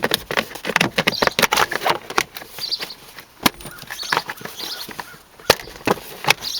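Plastic kick-panel trim cover being handled and fitted into place over the hood release latch: a run of clicks, taps and light rattles, with two sharper knocks, one about halfway through and one near the end.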